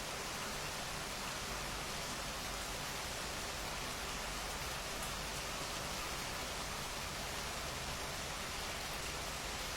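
Steady rain falling, an even, unbroken wash of noise with no distinct drops or gusts standing out.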